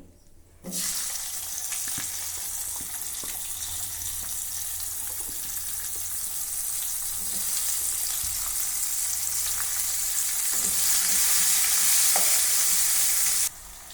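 Sliced onions sizzling in hot oil in a pan, stirred now and then with light scrapes and clicks. The sizzle starts about a second in, grows louder, and cuts off suddenly just before the end.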